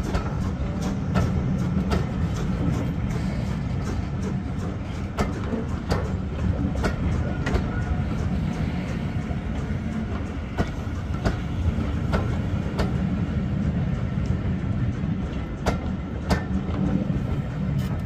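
Railway passenger coaches rolling past at low speed: a steady rumble of wheels on rail, with irregular sharp clicks as the wheels cross rail joints. The sound begins to drop away at the very end as the last coach passes.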